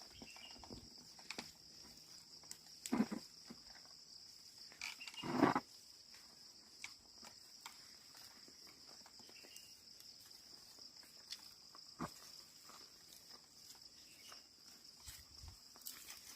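Insects chirring with a steady high-pitched drone, and a few scattered knocks and scuffs, the loudest about three and five and a half seconds in.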